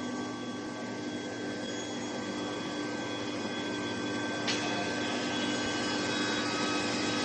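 Steel pipe induction heat-treatment line running: a steady machine drone with several constant humming tones, and one sharp click about four and a half seconds in.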